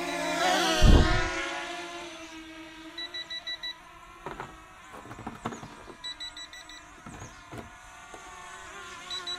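Holy Stone HS360 quadcopter's brushless motors spinning up, with a whine rising in pitch as it lifts off and a heavy thump about a second in. The whine then settles into a steadier, fainter hum. Three quick runs of short high beeps come about three seconds apart.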